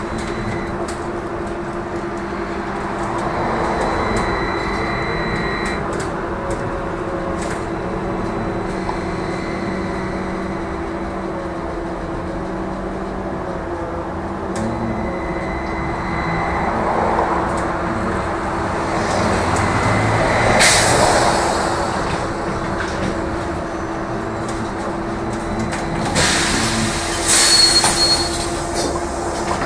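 Trolleybus running along the street, heard from inside: a steady electric hum under tyre and road noise, with light clicks and rattles. There are two louder bursts of hiss, one about two-thirds of the way through and one near the end.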